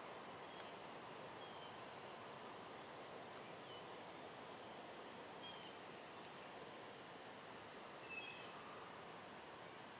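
Faint, steady outdoor hiss with scattered short, high bird chirps every second or two.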